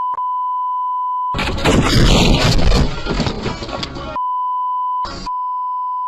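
A steady high censor beep, cut for about three seconds in the middle by a loud stretch of dense, rushing noise as the windshield is buried in snow, with another short burst of noise near the end before the beep resumes.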